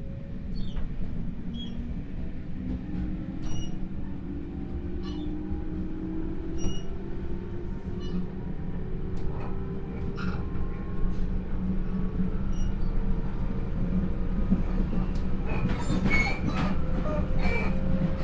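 Onboard running sound of JR 311 series motor car KuMoHa 311-2 as the train gathers speed. The traction motor and gear whine rises steadily in pitch over the low rumble of the wheels, with scattered clicks over rail joints. It grows louder, with heavier clattering near the end.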